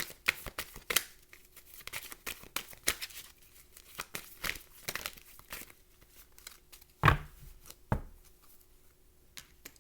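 A deck of tarot cards being shuffled by hand: a run of quick papery flicks and clicks, followed by two louder thumps about a second apart.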